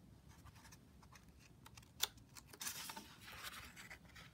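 Pages of a picture book being turned by hand: a faint tap about two seconds in, then a soft paper rustle lasting about a second.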